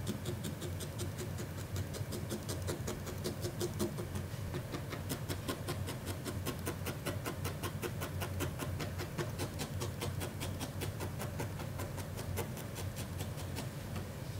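Felting needle stabbing repeatedly into wool: a steady run of short pokes, about four to five a second, over a low steady hum.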